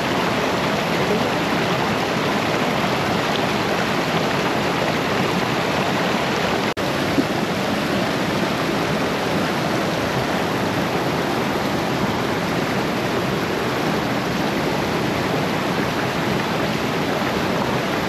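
Steady rushing water of a waterfall and mountain river, an even roar of falling water.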